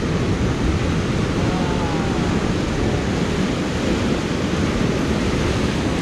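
Ocean surf breaking and churning against the rocks below, a steady rushing wash with wind rumbling on the microphone.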